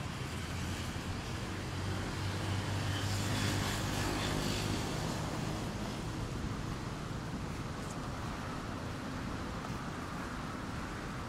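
An engine passes, its low hum swelling about three to four seconds in and then fading, over a steady wash of surf and wind.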